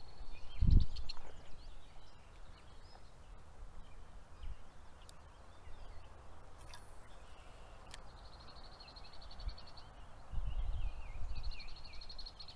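Small birds singing, with a high, rapid trill heard twice in the second half and scattered chirps. A loud low thump comes about a second in, and a low rumble comes near the end.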